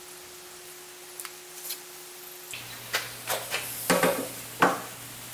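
Stained wooden frame strips being handled on a workbench: a few light taps early, then a quick run of sharp knocks and clicks from wood set down and shifted in the second half, over a faint steady hum.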